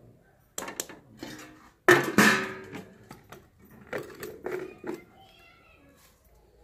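Steel kitchenware clattering as a stainless-steel lid goes onto a milk pot: one loud metallic clang with a short ring about two seconds in, and a few lighter knocks of utensils before and after.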